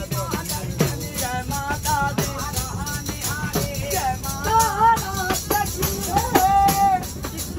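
Music: a wavering melody over light, regularly struck percussion.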